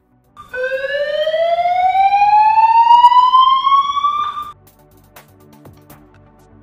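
Emergency siren tone played through a public address system, one long sweep rising steadily in pitch for about four seconds, then cutting off abruptly.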